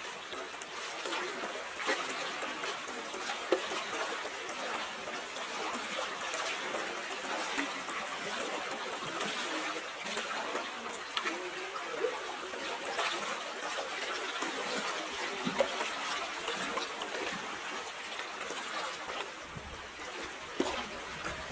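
Water trickling and splashing steadily, with many small splashes and drips in it. A low rumble comes in near the end.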